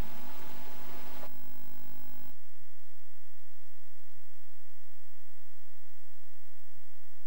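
A second or so of outdoor background hiss on the camcorder soundtrack, then a faint steady electrical hum with hiss and a few soft ticks, the sound of a blank tape after the recording ends.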